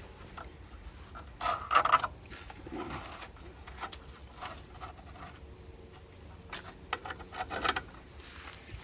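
Light clicks and scrapes of battery cables and terminal clamps being handled at a car battery, with a louder clatter about a second and a half in and a few more clicks near the end.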